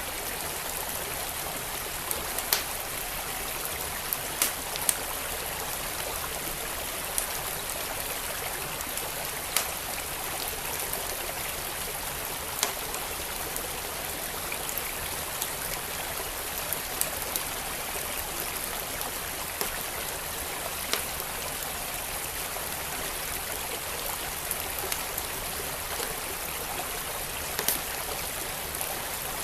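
Wood fire crackling, with scattered sharp pops at irregular intervals, over the steady rush of a flowing stream.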